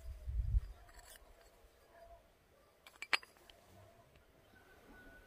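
Faint handling of a Malossi scooter variator in the hands: a low rumble near the start, then one sharp metallic click about three seconds in.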